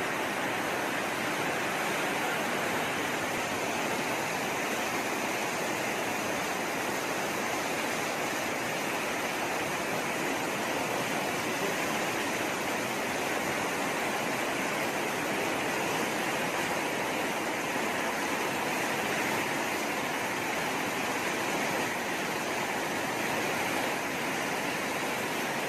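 Floodwater rushing fast down a street in a churning torrent: a steady, unbroken rush of water.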